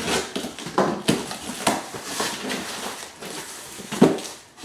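Cardboard box and packing being opened and handled: irregular rustling and scraping with several sharp knocks.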